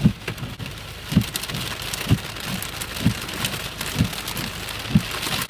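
Rain falling on a car's roof and windscreen, with sharp clicks of drops striking and a low thump about once a second.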